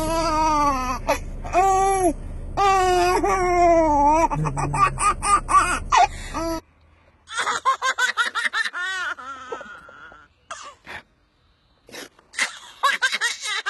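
Baby laughing in repeated bursts of high-pitched giggles and squeals. About six and a half seconds in, the sound cuts to another baby's shorter, more scattered laughs and squeals, with pauses between them.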